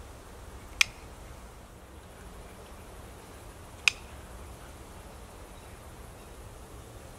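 Dog-training clicker clicking twice, about three seconds apart: sharp single clicks marking the dog for holding his starting position, the signal that a treat follows.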